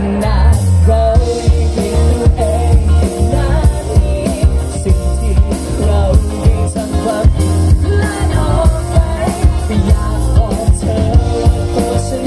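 A live band playing a song: a man singing lead into a microphone over a drum kit and keyboard.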